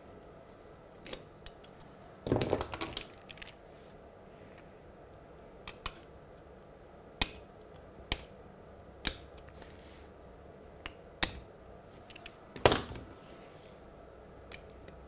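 Small metal blade clicking and scraping against a Peco model railway point as the tabs holding its centre section are prised up. A short run of scrapes and clicks comes about two seconds in, then single sharp clicks every second or so, with the loudest click near the end.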